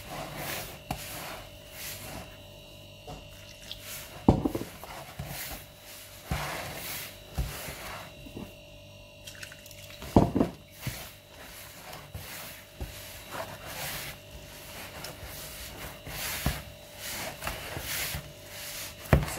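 A hand mixing and kneading crumbly semolina-and-flour dough in a plastic bowl: irregular rubbing and squishing, with knocks of the hand against the bowl and two louder thumps about four and ten seconds in.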